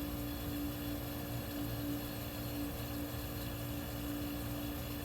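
1973 Westinghouse 25-pint dehumidifier running: a steady hum from its compressor and fan motor, with one clear tone held steady over it. Its sealed fan motor is starting to slow down, which the owner takes as a sign it needs oiling.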